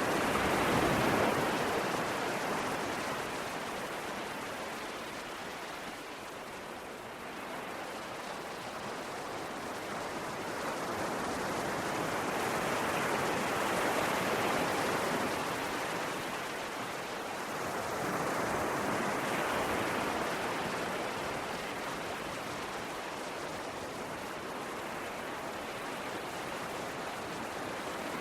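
Sea waves breaking and washing onto the shore in a steady rush of surf, swelling and easing in slow surges every several seconds.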